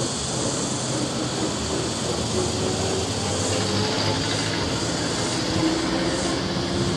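A steady drone of road traffic, with the engine of a vintage flatbed truck as it drives away through an intersection.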